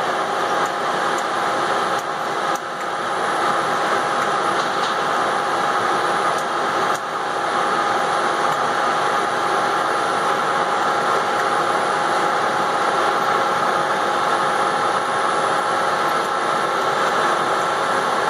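Speedline Vectra Elite wave soldering machine running: a steady mechanical whir with a few steady high tones, as its conveyor carries a circuit board over the solder wave.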